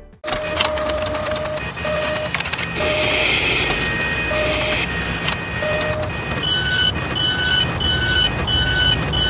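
Mechanical sound effects for an animated machine: a steady whirring and clattering with a burst of clicks at the start. Short beeps sound at irregular intervals, and from about six seconds in a run of higher beeps comes about twice a second.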